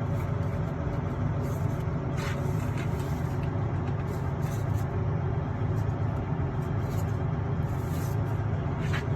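Diesel truck engine idling steadily with a constant low rumble, with a few faint light clicks on top.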